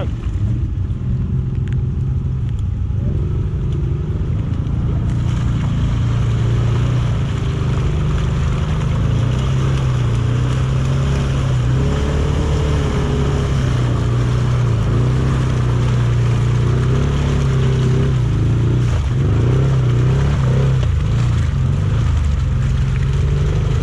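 ATV engine running under load, a steady drone whose pitch rises and falls with the throttle, with a few quick revs near the end.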